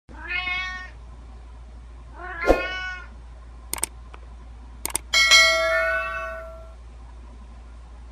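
Domestic cat meowing three times in short separate calls, with a couple of sharp clicks between them. About five seconds in, a bell-like ringing tone sounds and fades over about a second and a half, overlapping one of the meows.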